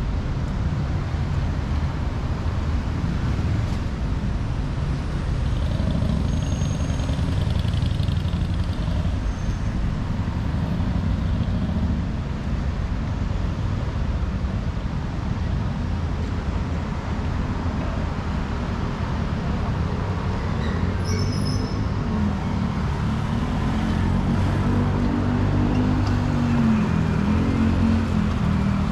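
City road traffic: a steady rumble of cars and buses passing. Near the end a vehicle engine's pitch rises and falls as it pulls away.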